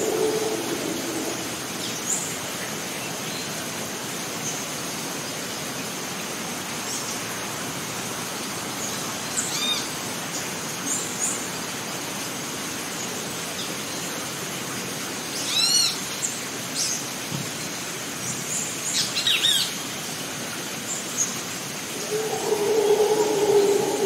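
Rainforest ambience: a steady hiss under a constant high-pitched insect drone, with short bird chirps about ten seconds in, a louder run around sixteen seconds and a cluster near nineteen seconds. A low droning sound comes in near the end.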